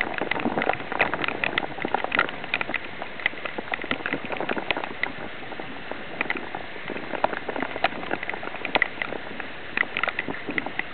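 Heavy rain with many irregular sharp ticks of drops, over a steady wash of water as a bicycle's front wheel rides through floodwater.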